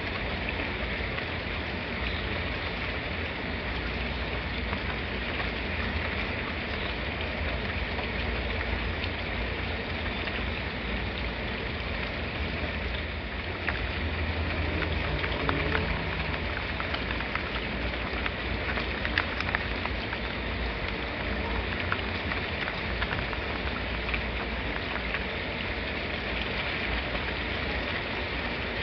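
Steady rain falling, an even hiss with scattered sharp ticks of individual drops, over a low steady rumble.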